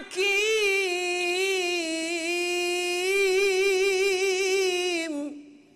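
A man's voice reciting the Quran in melodic tajweed style, holding one long ornamented note with a wavering pitch on the closing word "hakim". The note breaks off about five seconds in.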